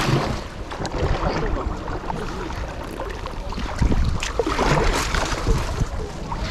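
Kayak paddle strokes splashing in the river water from an inflatable kayak, with a few louder splashes around the middle, over steady wind buffeting the microphone.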